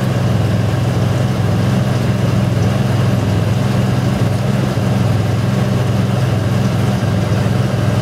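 1999 Ford Ranger's engine idling with a steady, even hum.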